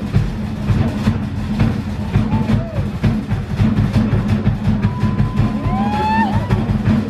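Loud, fast drumming with a steady rhythm, typical of Polynesian luau show percussion. About six seconds in, a voice gives a single rising cry.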